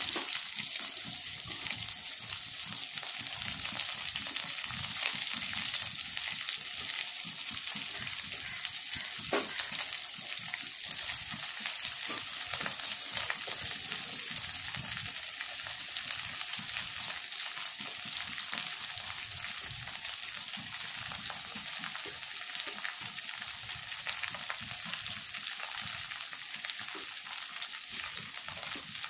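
Freshly added slices of ivy gourd (kovakkai) frying in hot oil in a wok: a steady sizzle with fine crackling, and a brief louder tick near the end.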